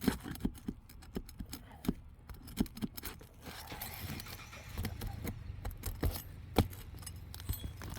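A roof snake and roofer's hatchet clinking and tapping as nails are worked loose from under asphalt 3-tab shingles, in quick irregular metallic clicks. About three and a half seconds in, a rough scraping joins the clicks.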